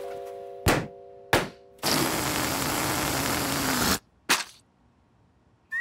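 Cartoon sound effects: a held chord fading out under two sharp pops, then a loud hiss lasting about two seconds that cuts off suddenly, followed by one more pop.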